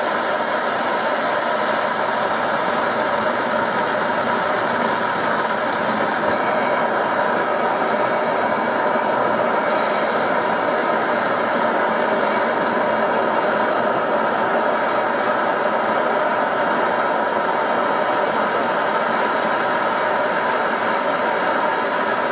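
Two handheld gas torches, one on a blue propane cylinder and one on a yellow Bernzomatic MAP-Pro cylinder, burning with a steady rushing hiss. The second torch is lit partway through and adds its flame. They are being set up to heat plane blades for hardening.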